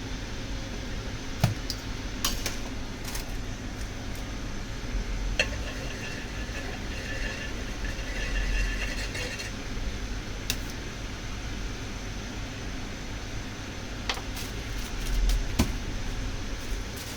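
Scattered light clicks and clinks of utensils or dishes, a handful of sharp taps spread through, over a steady background hum.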